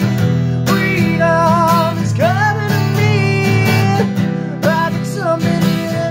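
Acoustic guitar strummed in a steady rhythm, with a man's voice singing over the chords and holding long, bending notes.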